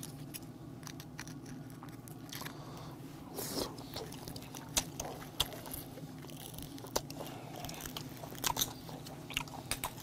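Close-up chewing and biting of grilled blood cockles, with scattered sharp clicks over a faint steady low hum.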